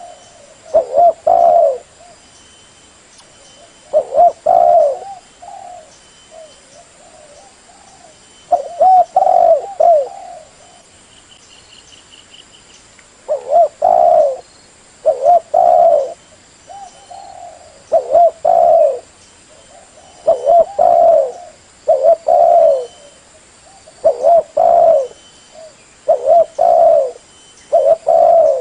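Spotted dove cooing repeatedly: loud phrases of two or three short, low coos, each phrase a couple of seconds long and repeated every few seconds. This is the decoy call used to draw wild doves in.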